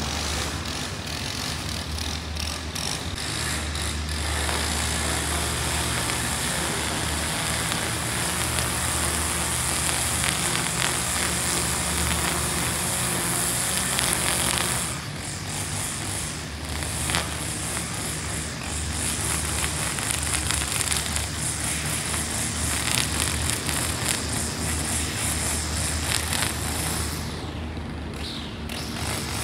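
Steady vehicle noise: a low hum under a broad hiss, easing briefly about halfway through and again near the end.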